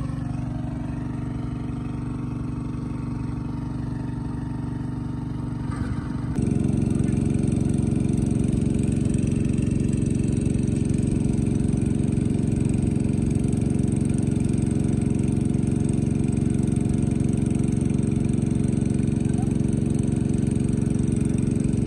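Small petrol engine of a portable water pump running steadily while it drains a pond. It jumps louder about six seconds in and then holds steady.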